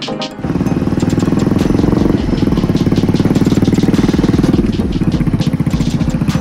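Hero Splendor's single-cylinder four-stroke engine running loud as the motorcycle is ridden: a rapid, even exhaust beat that starts suddenly about half a second in. Its note shifts a couple of times along the way.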